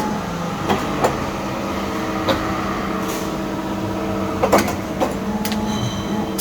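CNC wire bending machine running: a steady motor whine whose pitch steps between moves, with sharp clicks about a second in, again a little after two seconds, and a cluster of clicks near the end.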